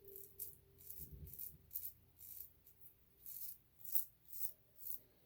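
Short scraping strokes of a Feather SS kamisori straight razor cutting through lathered whiskers, about two to three strokes a second.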